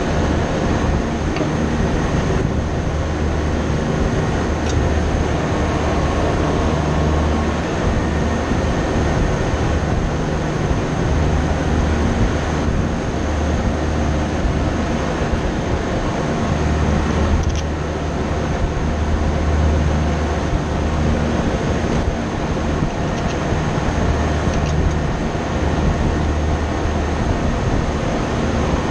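Steady low drone of running HVAC machinery, with fixed humming tones over a deep rumble. A few faint clicks sound over it.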